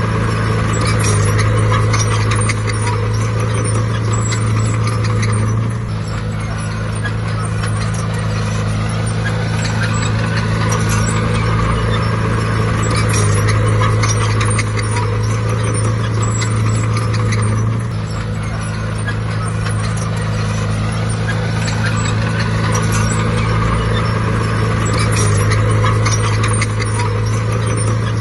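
A bulldozer's heavy diesel engine working, its note rising and falling in regular cycles of about six seconds as the load comes on and off. A constant patter of small clicks and knocks runs alongside it.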